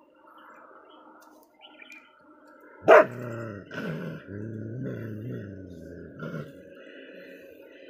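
A dog gives one sharp bark about three seconds in, then growls for about three and a half seconds in broken spells. It is food-guarding: the dog is warning off a second dog that has come near while it eats.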